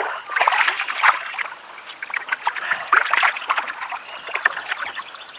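Water splashing in irregular bursts beside a kayak as a hooked freshwater drum thrashes at the surface while being reeled in. The bursts are loudest about half a second in and again about three seconds in.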